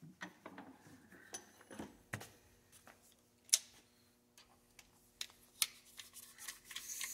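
Scattered light clicks and taps of hand tools and small steel gun parts being picked up and set down on a rubber workbench mat, with a sharper click about three and a half seconds in. A faint steady hum comes in about halfway through.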